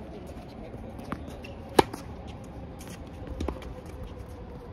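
Tennis ball being hit back and forth in a rally: one loud racket strike about two seconds in, with fainter ball bounces and distant strikes before and after it.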